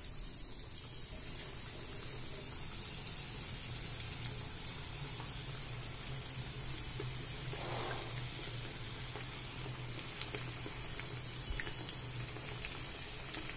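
Egg-and-flour-battered chicken wings deep-frying in hot oil in a frying pan: a steady sizzling hiss with small crackles as more pieces are dropped in one by one. A low steady hum runs underneath.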